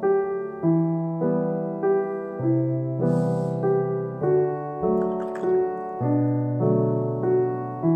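Background piano music, soft notes struck about every half second. There is a brief rustle about three seconds in and a few faint clicks a couple of seconds later.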